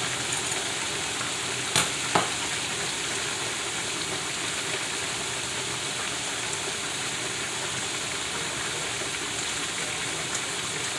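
Flour-dredged cube steaks frying in the oil of a Presto fryer: a steady sizzling hiss, with two sharp clicks about two seconds in.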